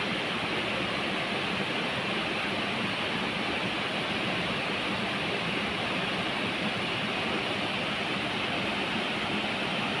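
Sita waterfall pouring down a tall rock face in several streams: a steady, unbroken rush of falling water.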